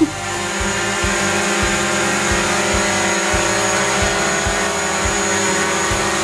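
DJI Mavic Pro quadcopter hovering indoors: its four propellers make a steady buzzing whine of several tones together.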